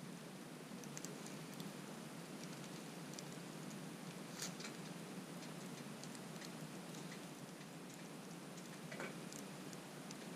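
Wood campfire crackling, with scattered sharp snaps and pops over a steady hiss of burning, and a louder pop about halfway through.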